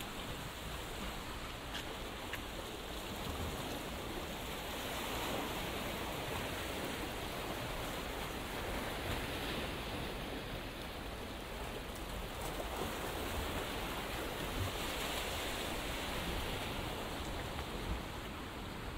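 Sea surf washing onto the shore: a steady rushing hiss that swells and eases every few seconds.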